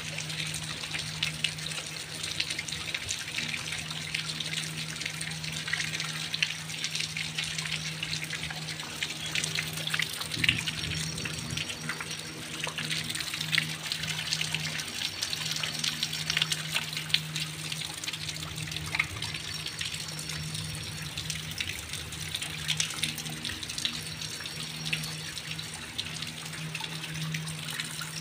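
Heavy rain pattering and splashing on flooded ground, with a steady low hum underneath.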